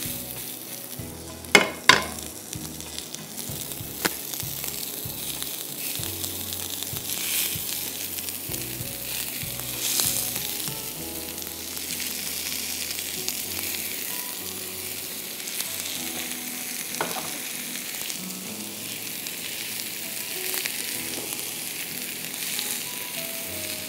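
Sliced onions and green peppers sizzling on a hot sizzler plate, a steady hiss, with a few sharp clicks as tongs and fried kebabs are set down on the plate; the loudest click comes about two seconds in.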